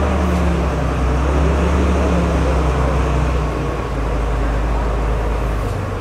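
An engine running steadily, a low rumble that holds even throughout.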